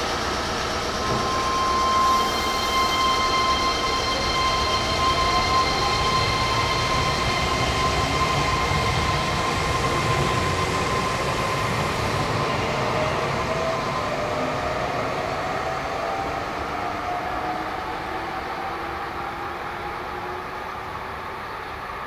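Meitetsu electric train accelerating, its motors whining in several tones that glide upward over the rumble of wheels on rail. The sound is loudest early on and fades slowly through the second half.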